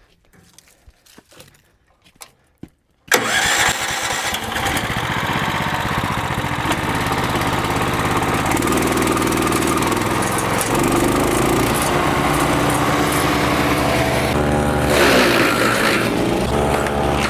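A few faint clicks, then about three seconds in an engine starts abruptly and keeps running loudly and steadily, its pitch shifting a little.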